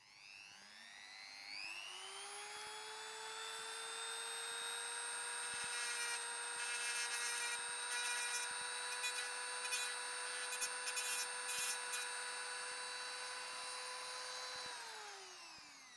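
Hand-held Dremel-type rotary tool with a thin cutting disc spinning up to a steady whine, then spinning down near the end. Through the middle the disc grinds metal off the pins of a DIN plug in short, repeated contacts, cutting away half of each solder cup.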